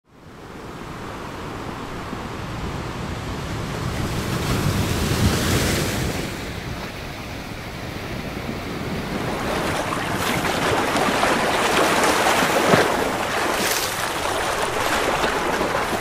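Sea waves breaking and washing over shoreline rocks, a continuous rushing surf that swells twice, about five seconds in and again around twelve seconds, with wind rumbling on the microphone.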